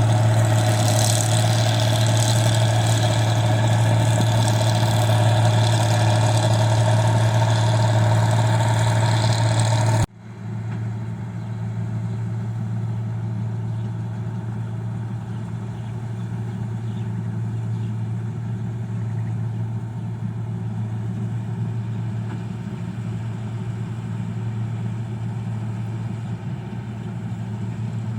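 Rice combine harvester's diesel engine running steadily with a low hum. About ten seconds in, the sound drops abruptly to a quieter, more distant level of the same engine.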